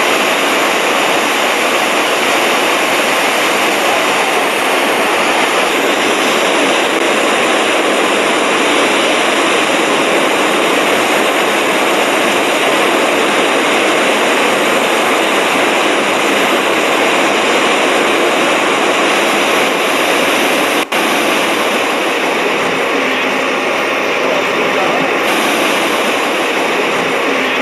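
Steady rush of a huge waterfall, Iguazu Falls, a dense even noise with a brief dip about three-quarters of the way through.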